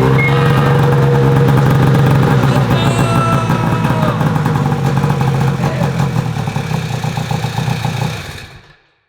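Freshly rebuilt Ski-Doo Rev 800 H.O. two-stroke snowmobile engine running after a start, with noises the crew calls scary, then dying away near the end.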